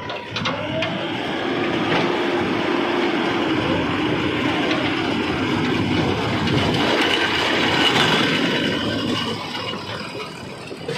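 A JCB 4DX backhoe loader's diesel engine revs up under load about a second in, holds high for several seconds, then eases back down near the end.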